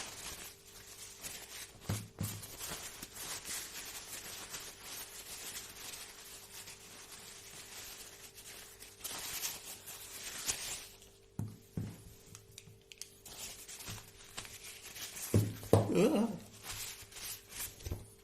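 Paper being handled, torn and crumpled in a series of rustles, over a faint steady hum.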